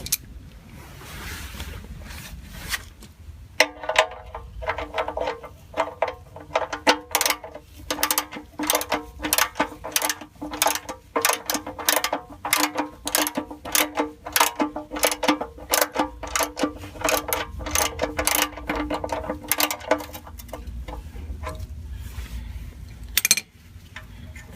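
Socket ratchet wrench clicking in quick strokes as it tightens the oil drain bolt back into the oil pan, each click with a short metallic ring; the clicking starts about four seconds in and stops a few seconds before the end. A single sharp knock follows near the end.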